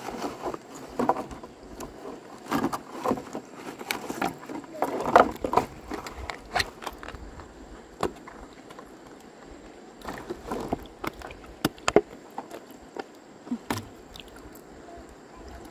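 Irregular splashes and knocks in water, coming in clusters, with a lull of a couple of seconds in the middle.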